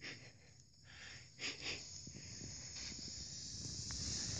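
Skis sliding and scraping through snow on a descent, a hiss that grows steadily louder over the second half as the skier comes close.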